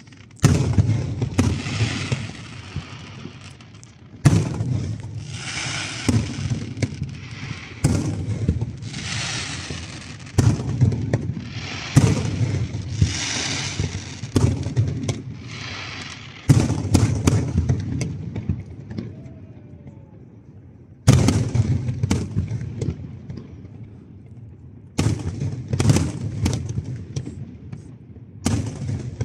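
Aerial firework shells bursting one after another: sharp booms, each followed by a fading crackle. The bursts pause for a few seconds after the middle, then start again.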